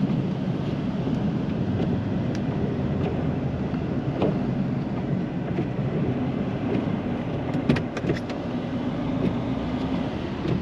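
Snow plow truck's engine running steadily under load, heard from inside the cab, with a brief run of sharp clicks about eight seconds in.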